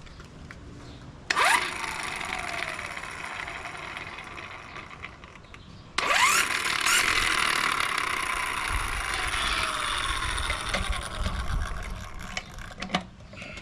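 12V corded electric impact wrench run twice: each time it spins up quickly with a rising whine and then keeps running, first for about four and a half seconds, then for about six and a half.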